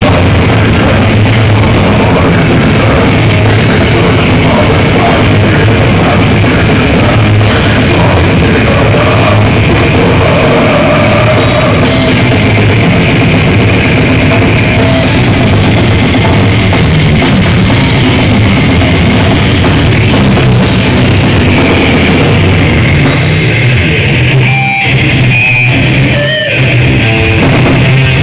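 Death metal band playing live at high volume: electric guitars, bass and a drum kit, with two short breaks near the end.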